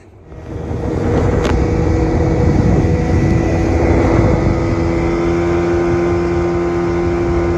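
Small boat's outboard motor running steadily at speed, with a steady engine hum over the rush of water and wind. It builds up over the first second, then holds even.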